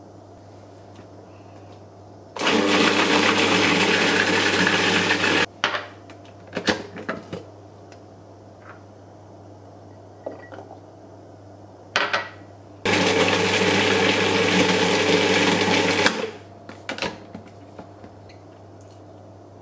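Cuisinart food processor running in two bursts of about three seconds each, blending shiso pesto, with a few clinks and knocks between the runs.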